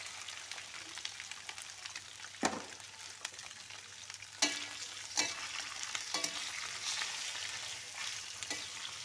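Peeled small shrimp sizzling in hot oil and fried garlic in a metal wok, being stir-fried so the flesh firms up. A steady sizzle, with the spatula knocking sharply against the pan several times.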